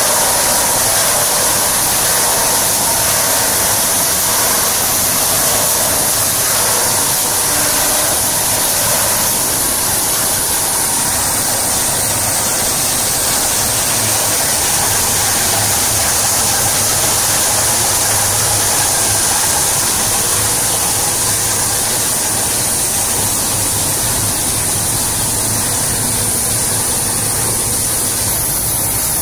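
Industrial plastic crusher (bottle granulator) running: a loud, steady mechanical whirr with a strong hiss on top.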